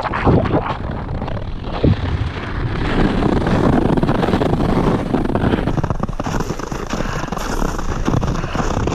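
Wind buffeting the microphone over ice-skate blades scraping and crunching through a thin layer of snow on lake ice as the skater strides. There are a few distinct stride scrapes in the first two seconds, then a steadier, hissier glide.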